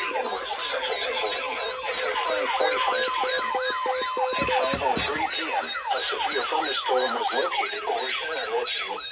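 Several electronic siren-like warning tones sweep up and down over one another, repeating a few times a second. A steady tone sounds underneath and stops a little before halfway through.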